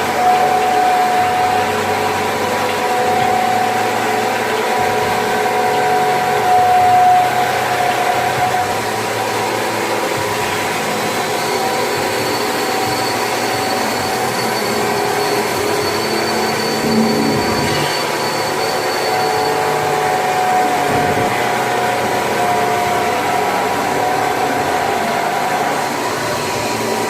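Rotary monoblock bottle-filling machine with 16 nozzles running: a steady mechanical hum with several held tones. A faint high whine joins for several seconds in the middle.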